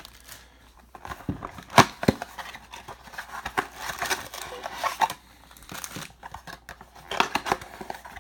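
Trading-card pack wrapper crinkling and being torn open, with cards and cardboard handled. Scattered crackles, with two sharp snaps about two seconds in.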